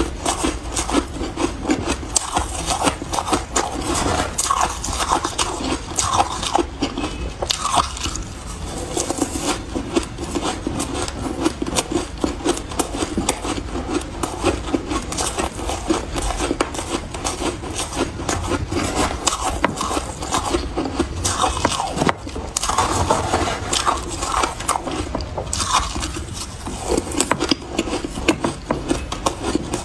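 Close-up crunching of shaved ice, chewed mouthful after mouthful and scooped from a tray with a spoon: a dense, unbroken run of crisp crackles and scrapes.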